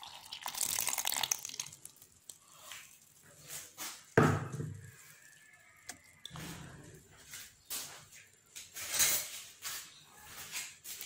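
Milk pouring into a glass blender jar onto sliced banana and strawberries, splashing for about a second and a half and then stopping. A sharp knock about four seconds in is the loudest sound, followed by scattered small clicks and bursts of bubbling.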